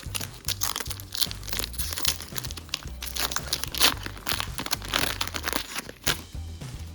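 Foil Pokémon booster pack wrapper crinkling and being torn open in irregular crackles, over background music with a repeating bass line.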